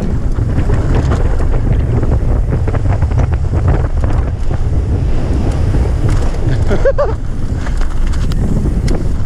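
Wind rushing over a helmet-mounted camera's microphone as a mountain bike descends a rough dirt track, with rattling and clicking from the bike and tyres over stones. A short pitched sound comes about seven seconds in.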